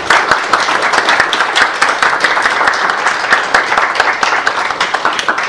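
Audience applauding: a dense run of many hands clapping, beginning to thin out near the end.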